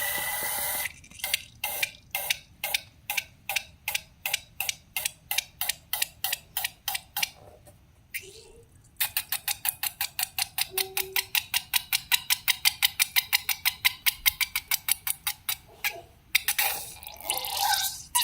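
Slime being worked by hand, making a regular run of sticky clicks, about three a second, that fade away. After a short pause comes a faster run of about six a second, and a brief squelch near the end.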